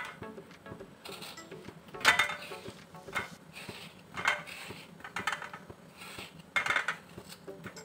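A kitchen knife and cut mango slices clinking and clattering against a stainless steel plate, four or five times, the loudest about two seconds in.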